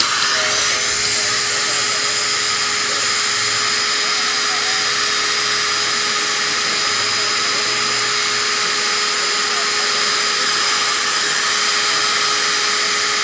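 Steady whir of a small electric fan motor in a corded, powered carpet seam-cooling weight, with a constant high whine over a lower hum, as it cools the hot-melt seam tape.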